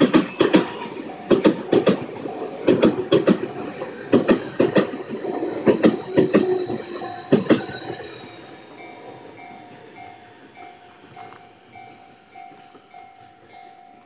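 A Tobu Noda Line electric train passes close by, its wheels clacking over the rail joints under a high whine that slowly falls in pitch. The train sound fades after about eight seconds, while a level-crossing warning bell keeps dinging steadily, about twice a second.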